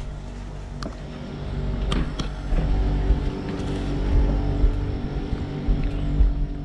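A motor humming steadily under a low rumble that grows louder about two seconds in, with a few light knocks.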